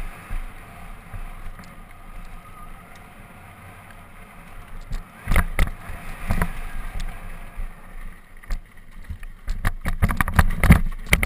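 Mountain bike descending a dirt trail, heard from a camera riding on the bike: a steady rush of tyre and wind noise, broken by a few sharp knocks over bumps, then a near-constant rattle and clatter of the bike over rough, rocky ground in the last couple of seconds.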